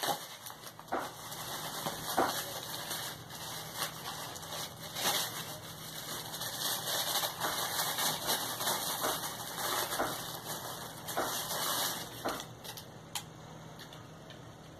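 Plastic toy packaging crinkling and rustling as it is handled and opened, with many irregular clicks and taps of hard plastic pieces.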